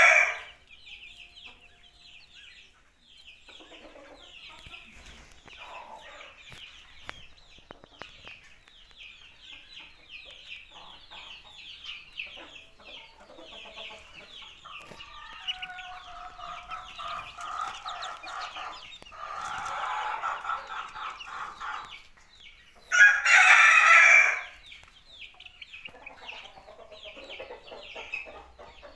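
A flock of desi chickens clucking and calling continuously, with a dense chatter of short calls. A rooster crows loudly once near the end.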